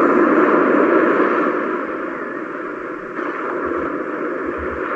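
Aurora projector lamp's built-in speaker playing one of its built-in ambient sound tracks: a steady rushing noise with no deep bass, which shifts slightly about three seconds in.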